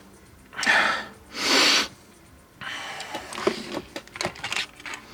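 A person's breath: two forceful hissing exhalations about a second apart. From about halfway on come quiet scattered clicks and rustling of small things being handled.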